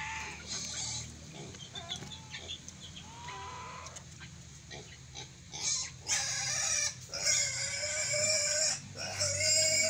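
Farm animals calling: a few soft, short calls at first, then from about six seconds in four loud, drawn-out calls, the third and longest lasting about a second and a half.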